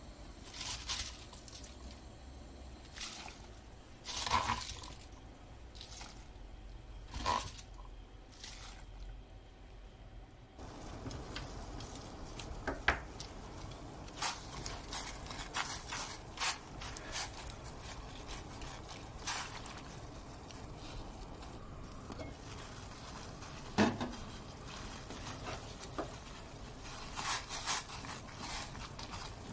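Water bubbling in a stainless steel pot on the stove as chopped cabbage is blanched, with scattered light clicks and knocks. The water noise grows fuller about a third of the way in. Near the end, wooden chopsticks stir and push the cabbage in the water with a few quick clicks.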